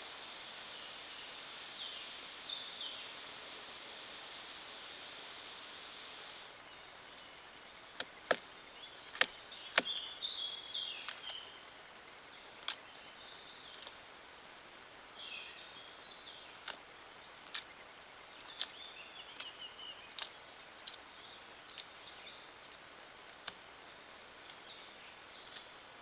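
Woodland birds chirping in short, high phrases, with several sharp knocks scattered between them, over a steady hiss from the trail camera's microphone.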